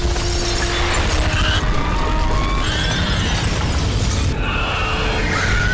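Film sound effects of a giant serpent smashing into a glass skyscraper: continuous shattering glass and crumbling debris, with music underneath.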